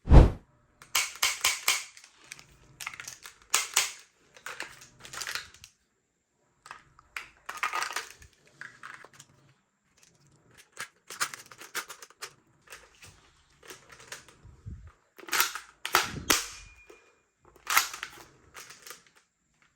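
Spring-powered toy guns being cocked and fired: a string of sharp plastic clicks and snaps, some in quick runs of three or four, with a loud snap right at the start.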